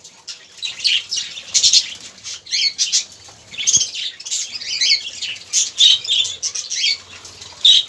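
A flock of budgerigars chattering and chirping in irregular bursts, with wings flapping now and then as birds shift between perches.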